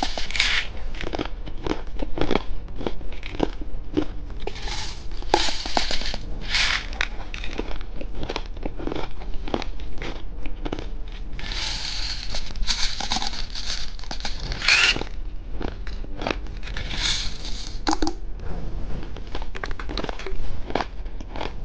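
Candy packaging being handled and opened: plastic wrapper crinkling and tearing, with irregular crackles and clicks and a few longer rustling stretches.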